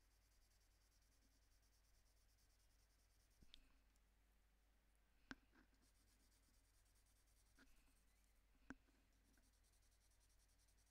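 Near silence: faint scratching of a Prismacolor colored pencil shading on toned paper, with four soft clicks, two of them sharper, in the middle of the stretch.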